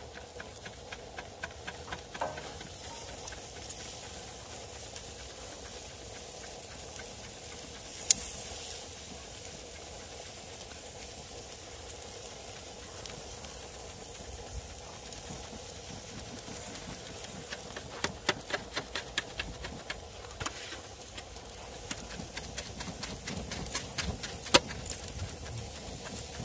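Pork ribs and sausages sizzling and crackling on a charcoal grill, the crackle thickening for a stretch from about eighteen seconds in. Metal tongs click sharply against the grate about eight seconds in and again near the end.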